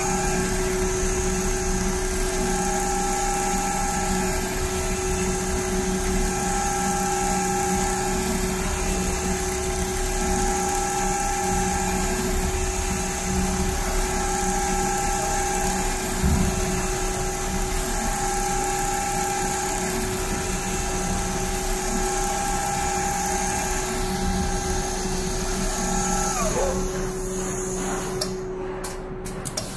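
CNC rotary-head quilting sewing machine running: a steady high whine from its drives and stitching head. The whine drops in pitch and fades about 26 seconds in, followed by a few clicks.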